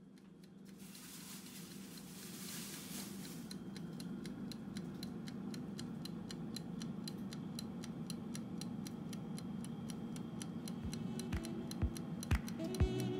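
BSW air fryer running: its fan hums steadily while the clockwork timer dial ticks in a fast, even beat. Music with a beat comes in near the end.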